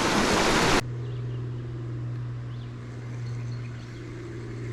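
Creek water rushing loudly, cut off abruptly under a second in, giving way to a quieter, steady low whir with faint running water.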